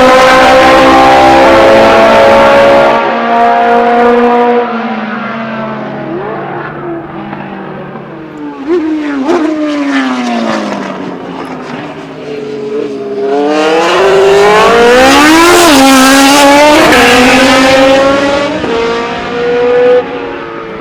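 Loud unsilenced historic racing car engines at speed on the circuit. The first car runs at high revs, its pitch stepping down twice in gear changes and falling as it goes away. A second pass follows with a rising note that peaks about 15 to 16 seconds in, then drops away.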